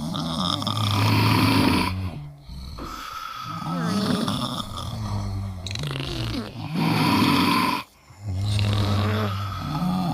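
Several snores overlapping one another, loud breaths swelling and fading about every two to three seconds, with wavering pitched tones bending up and down.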